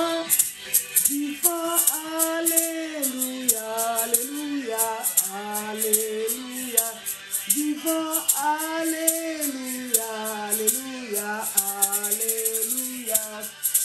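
Worship music: a voice singing a melody with held, gliding notes over a shaker keeping a quick, steady beat.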